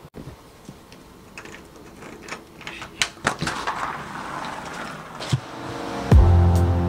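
Scattered light clicks and knocks of things being handled, with a rustling swell in the middle. Background music starts suddenly near the end and is the loudest sound.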